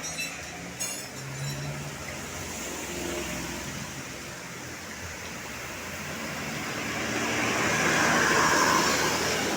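Road traffic with a vehicle passing close: a broad tyre-and-engine noise swells to its loudest just before the end, then begins to fall away. A short rattle is heard about a second in.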